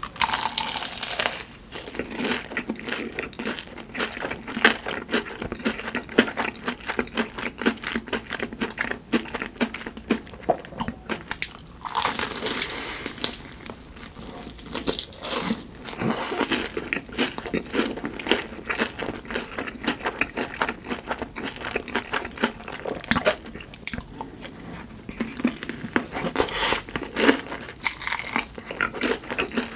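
Close-miked eating of crispy fried food: a steady run of crunchy bites and chewing, with louder crackling crunches in bursts.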